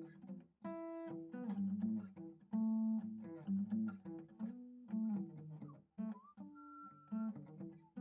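A man singing a short made-up tune of nonsense syllables over plucked acoustic guitar.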